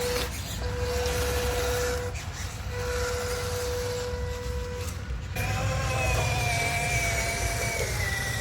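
Small electric RC truck motors whining steadily, broken by a short gap about two seconds in. A little over five seconds in, a different, higher whine that wavers in pitch takes over.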